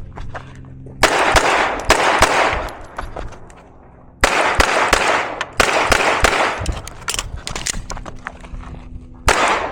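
Handgun shots fired in quick strings of several shots each, with short pauses between strings and echo after each shot. Strings start about a second in, twice in the middle and again near the end.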